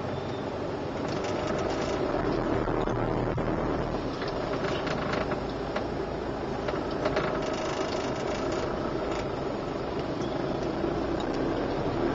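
Steady traffic noise heard from inside a car moving slowly in traffic: the car's own running noise mixed with the buzz of motorcycle engines close around it.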